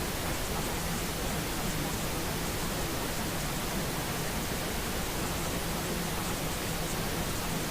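Steady white noise hiss, even across all pitches and unchanging in level. It is the masking layer of a subliminal affirmation track.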